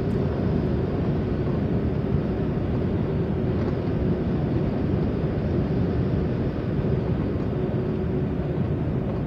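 Steady rush of air streaming past the cockpit of an Archaeopteryx glider in flight, with a faint steady tone underneath.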